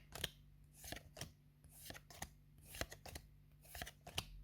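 Yu-Gi-Oh trading cards being handled and flicked through by hand: a run of faint, short card flicks and slides, about three a second.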